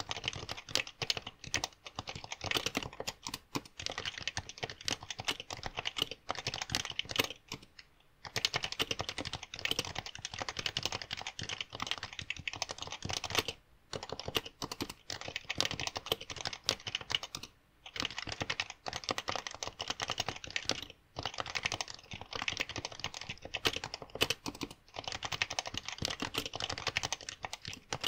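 Fast continuous typing on a PFU Happy Hacking Keyboard Professional 2, its Topre capacitive keys giving a rapid run of key clicks, broken by brief pauses every few seconds. Picked up through a smartphone earbud headset's microphone.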